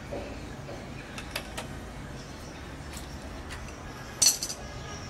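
Light metal-on-metal clinks of an open-end spanner against the mandrel and cutting disc fitted in a drill: a few short clicks, then a louder cluster of clinks about four seconds in.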